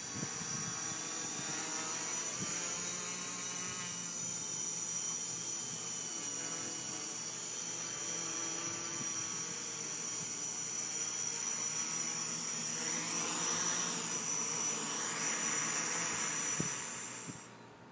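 Small multirotor drone's electric motors and propellers whining steadily while it hovers, the pitch shifting up and down with throttle corrections and louder in the second half. The whine cuts off suddenly near the end.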